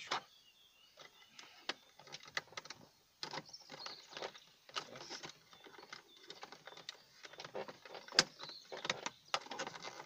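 A screwdriver prying at the plastic trim around a Chery Tiggo's interior rear door handle, working it off its retaining clips: an irregular run of small plastic clicks, scrapes and knocks, the sharpest about eight seconds in.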